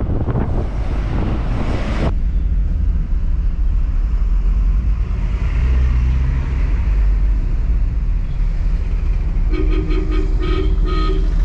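Riding inside a moving car: wind rushes in through the open window, cutting off abruptly about two seconds in, leaving the low rumble of the engine and road. Near the end a vehicle horn sounds in a quick series of short beeps.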